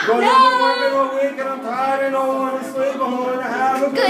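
A man and a woman singing amateur-style into microphones, holding one long steady note for about three seconds before moving on to shorter notes.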